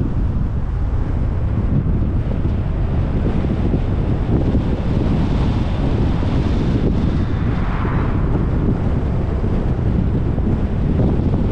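Wind rumbling on a GoPro's microphone while driving, a steady low noise mixed with road sound from the moving car. A brief higher swell of noise rises and fades about eight seconds in.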